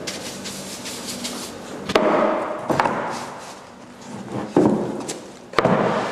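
Heavy wooden board knocking against a wooden nougat frame and table as it is set down: four sharp wooden knocks, about two seconds in, just under three seconds in, and twice near the end.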